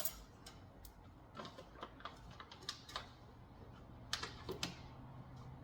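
Bags of lamb loin chops being cut open and handled: scattered small clicks, snips and crackles, with a quick cluster of louder ones about four seconds in.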